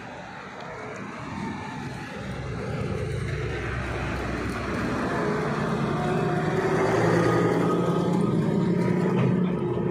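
A motor vehicle's engine drawing closer, growing steadily louder, then falling away just before the end.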